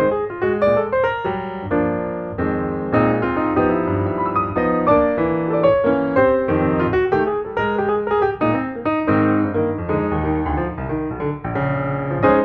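Background piano music, notes played in a steady flowing line.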